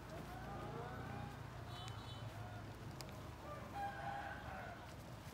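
Chickens calling, with a rooster crowing near the end, over a low steady hum.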